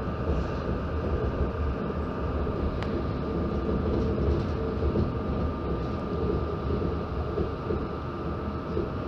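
Running noise heard from inside a moving RER commuter train: a steady rumble of wheels on rail under a constant high whine. A single sharp click comes about three seconds in.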